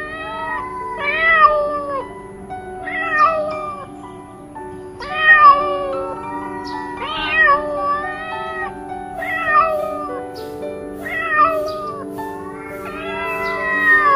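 Domestic cat's warning yowls in a standoff: drawn-out, wavering calls about every two seconds, the last one held longer. Background music plays underneath.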